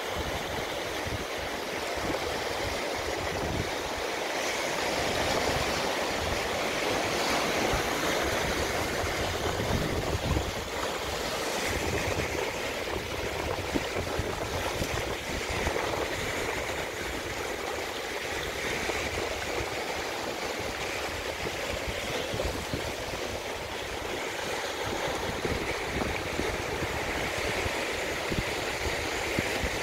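Steady rush of water, with an irregular gusty low rumble underneath.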